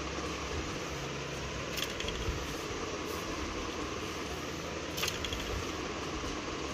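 Small battery motor of a catch-the-mouse cat toy running steadily with a whirring hum as it drives the toy mouse around its track. Two light clicks, about two seconds and five seconds in.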